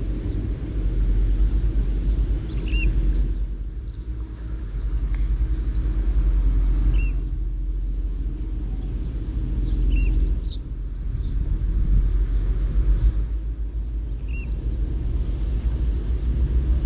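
Outdoor riverbank ambience: a steady low rumble that swells and eases every few seconds, with a small bird chirping briefly every few seconds over it.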